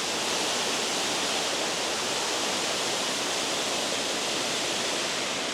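Water rushing over a spillway: a steady, loud roar of falling water that never lets up.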